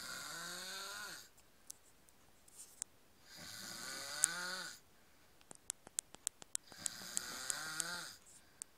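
A man snoring in sleep: three long, regular snores about three and a half seconds apart, each with a pitch that dips and rises. Between the second and third snore comes a quick run of about ten faint sharp clicks.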